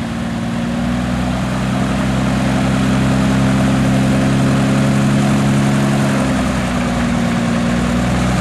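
Eggenfellner E6 Subaru-based six-cylinder aircraft engine on a static full-power run-up, turning a four-blade composite propeller: a steady, even drone with the propeller's noise on top, growing a little louder in the first few seconds. It runs smoothly.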